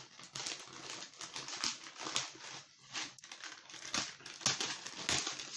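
Scissors slicing along the packing tape of a cardboard box: a run of irregular rasping, crackling strokes as the tape is cut and pulled.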